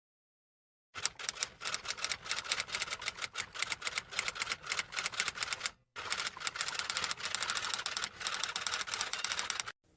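Rapid typing: a long run of sharp key clacks, several a second, starting about a second in, with a brief break partway through.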